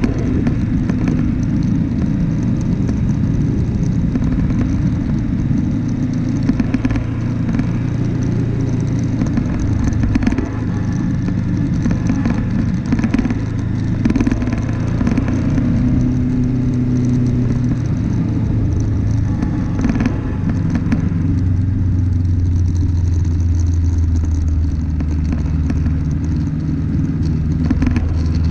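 Vehicle engine running under way over a rough dirt track, its pitch rising and falling, with scattered knocks and rattles from the bumps.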